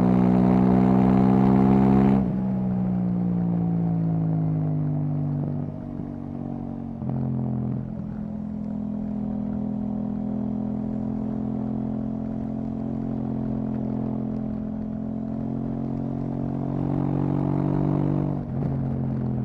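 KTM 790 Duke's parallel-twin engine through an Akrapovic exhaust, on the move: loud under throttle for the first two seconds, then the throttle closes and the revs fall away. Short breaks about seven seconds in and near the end, in between a long steady pull with the revs slowly climbing.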